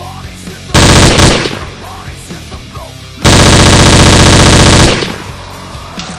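Two bursts of rapid automatic gunfire, a short one about a second in and a longer one of about a second and a half past the middle, very loud over background rock music.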